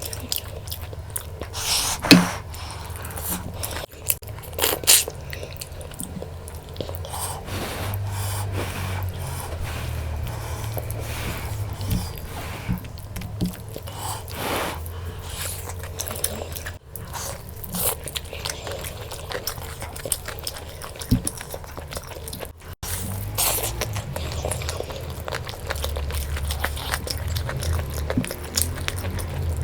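Close-miked eating sounds: a person chewing and biting into mutton curry and rice, with irregular wet mouth clicks and smacks. A low steady hum runs underneath.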